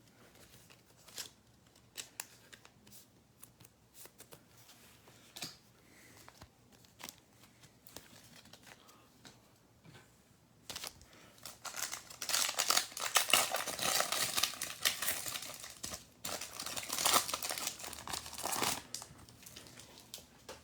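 Trading cards handled with scattered light clicks and taps, then from about halfway through a trading-card pack wrapper crinkling and tearing as it is opened, in two spells.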